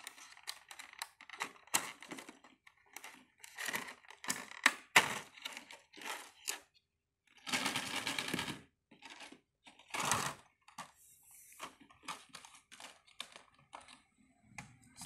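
Hollow plastic play balls clacking and knocking against each other and against a plastic tub in irregular clicks, with a clear plastic bottle holding small balls rattling and crinkling for about a second near the middle.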